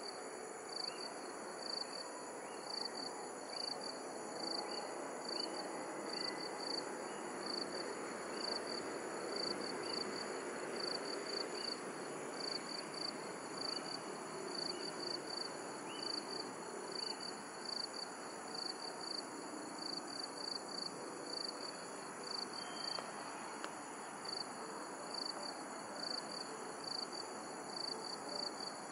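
Night insects chirping: a regular, high-pitched pulsing chirp repeating a few times a second, over a steady high trill and an even background hiss.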